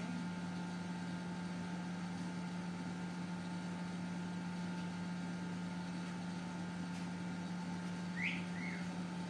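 Steady low machine hum with a fainter steady higher tone, and a short high chirp that rises and falls about eight seconds in, followed by a second, lower one.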